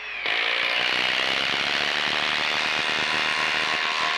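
Milwaukee M18 FUEL 2853-20 impact driver hammering steadily as it drives a 4-inch lag screw into fresh hardwood. A short whine of the motor spinning freely gives way to the rapid impacting about a quarter second in.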